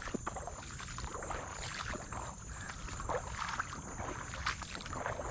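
Shallow water swishing and lapping around legs as someone wades, with soft small splashes scattered through.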